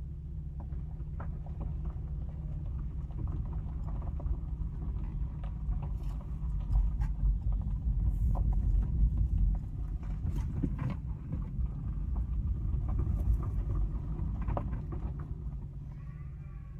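Hooves of a passing cattle herd clopping irregularly on the road, heard from inside a car over a low, steady rumble.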